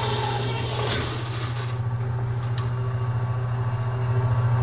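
Sears Craftsman 10-inch band saw running with a steady motor hum, cutting into a wooden board for the first two seconds, its blade too loose. Near the end it is switched off with a click and the hum dies away.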